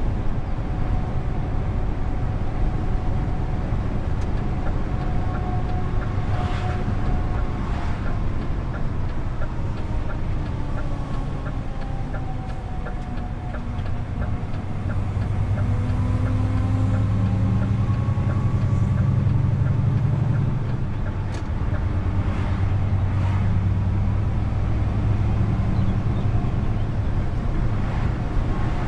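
DAF XF truck's diesel engine and road noise while driving: a steady low drone with engine tones that slide down and back up, growing louder for several seconds past the middle as the engine pulls harder.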